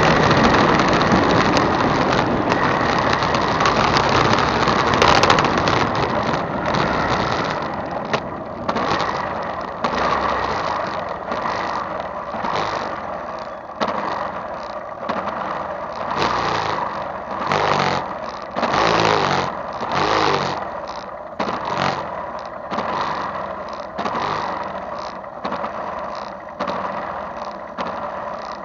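Motorcycle running while riding, engine and rushing air loud on a handlebar-mounted camera, then the bike stopped with its engine idling. A few seconds in the steady noise drops away into quieter, uneven surges.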